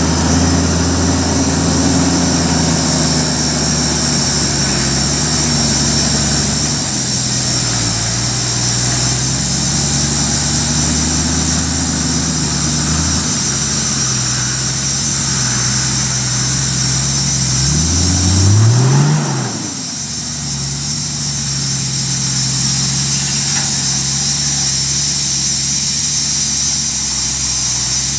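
Toyota Landcruiser 80 Series 4.2-litre turbo-diesel engine running at low revs as the truck crawls over a rutted dirt track, its note drifting up and down with the throttle. About 18 seconds in it revs up briefly, then drops back to a lower, steady note.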